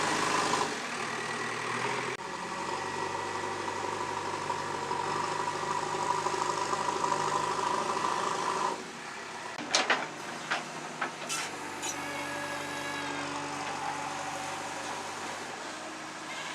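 JCB 3DX backhoe loader's engine running steadily; it drops in loudness about halfway, and a few sharp metallic knocks follow.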